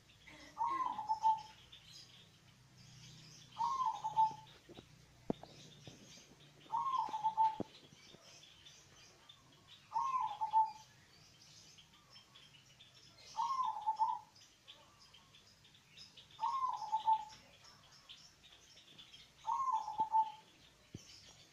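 Local-strain zebra dove (perkutut) cooing: a short phrase of a quick rising-and-falling note followed by a held lower note, repeated seven times about every three seconds. Faint chirping of small birds runs underneath.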